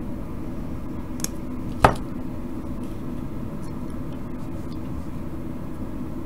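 Side cutters snipping a plastic header strip into single pieces: one sharp snip about two seconds in, with a fainter click just before it and a few light ticks after, over a steady low hum.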